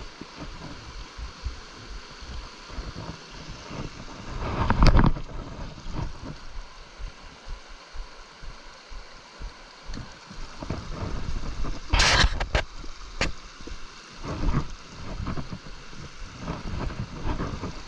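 Steady rush of a flowing brook, with irregular low bumps and two louder bursts of noise, about five seconds in and again about twelve seconds in.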